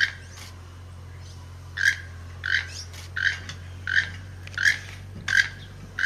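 Keel-billed toucan calling: a string of short, dry, frog-like croaks. After one call and a pause of nearly two seconds, the croaks repeat about every 0.7 seconds.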